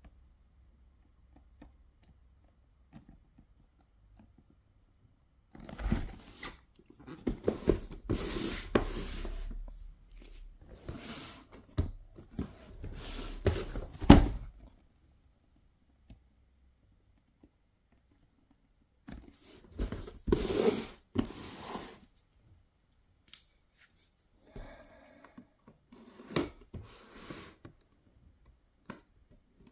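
Packaging being cut and torn open by hand, in four bursts of snipping, ripping and rubbing with sharp clicks and one loud knock, separated by quiet pauses.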